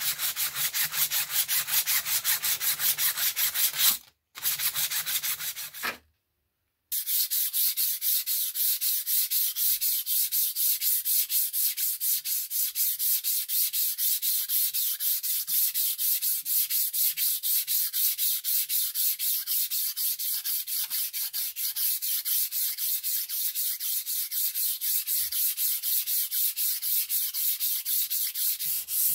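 Sandpaper rubbed by hand back and forth along a steel scissor blade: a rhythmic scratchy rasp, about three strokes a second. The sound cuts out briefly twice in the first several seconds.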